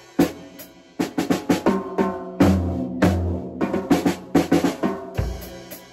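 Acoustic drum kit being practised: quick runs of drum strokes, with a few heavier hits about two and a half, three and five seconds in that ring on, in short phrases with brief pauses between.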